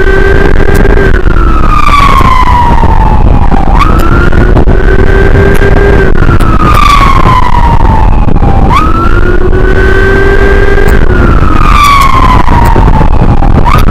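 Emergency siren in a slow wail: each cycle jumps up quickly, holds high for a second or two, then slides down, repeating about every five seconds, three times. Under it runs steady low wind and road noise from riding at speed.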